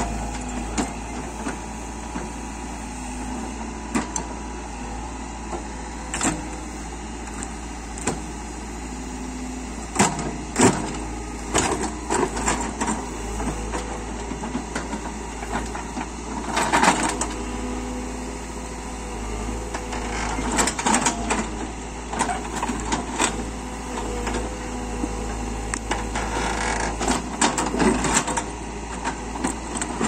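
Caterpillar backhoe loader's diesel engine running steadily as the rear bucket digs rocky soil, with frequent sharp clanks and knocks. The loudest come in clusters about ten seconds in and again around seventeen seconds.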